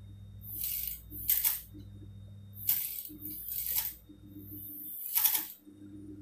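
Fabric being shifted and lined up under the presser foot of a Typical industrial sewing machine, heard as five short hissing rustles. A steady low hum from the machine's motor runs underneath.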